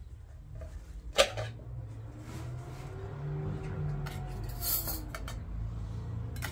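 Dishes and utensils clinking and knocking: one sharp clack about a second in, then a quick cluster of clinks near the end, over a steady low hum.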